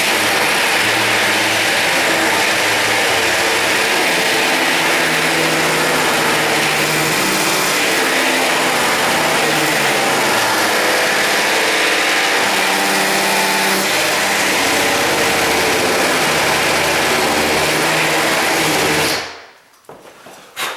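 Electric drill running continuously under load, a steady hiss over a motor whine whose pitch wanders as it bears on the work, then stopping about nineteen seconds in.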